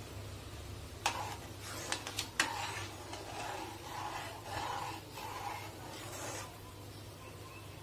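Metal spoon stirring thick tomato saar in a pan: a few sharp clinks against the pan about a second in, then a run of scraping stirring strokes that stops well before the end.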